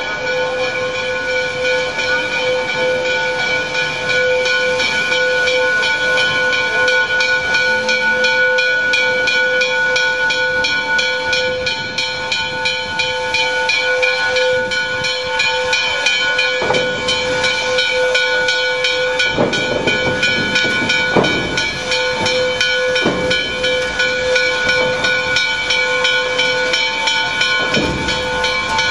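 Steam locomotive (Canadian National 2-8-2 No. 3254) hissing steam, with a steady ringing note made of several tones throughout. A few louder bursts of steam come in the second half.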